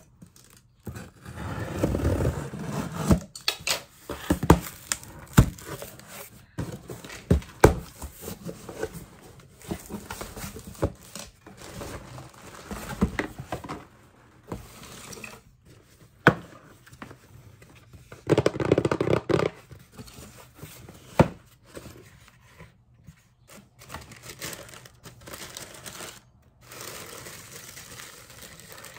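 Rustling, crinkling and tearing, as of paper or plastic being handled, with scattered sharp clicks and knocks; the rustling is heaviest about two seconds in and again about nineteen seconds in.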